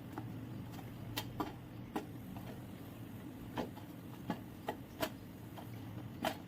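A thick ghee-roasted wheat-flour roti being broken by hand into small pieces on a plate: about a dozen light, irregular clicks and cracks.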